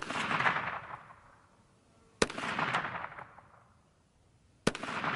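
KelTec PMR-30 .22 Magnum pistol firing three shots about two and a half seconds apart, each a sharp crack followed by an echo that dies away over about a second.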